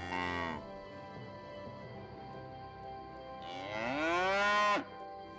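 Cattle mooing twice: a call that ends about half a second in, then a longer moo that rises and falls and cuts off suddenly near the end.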